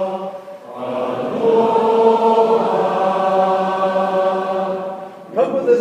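A vocal chorus sings sustained a cappella harmony. One held chord fades out about half a second in, then a new chord swells up and is held for about four seconds.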